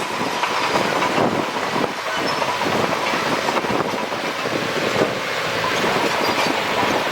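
Crawler bulldozer at work: steady engine noise under a dense clatter of rapid knocks from its steel tracks.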